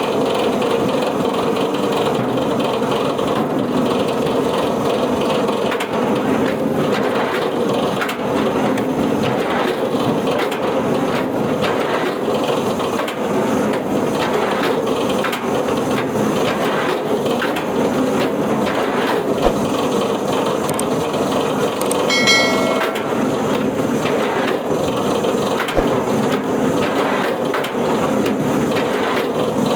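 Wood-processing machine running steadily while handling wood, with frequent knocks and crunches of wood and a brief high squeal about two-thirds of the way through.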